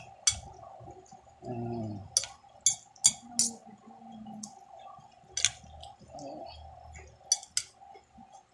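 A metal spoon clinking against a dish several times in sharp, separate clicks, heard while the dish is served and handled.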